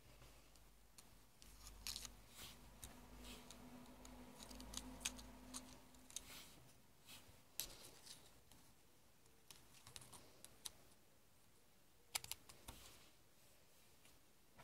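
Faint, scattered clicks and ticks of plastic drinking straws being handled and fiddled with, over a low rumble of hands moving about; a quick cluster of clicks comes near the end.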